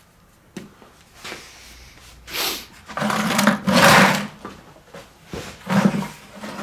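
Scrap laptop circuit boards sliding and clattering in a bucket as it is handled, in a series of scraping rushes that are loudest about three to four seconds in.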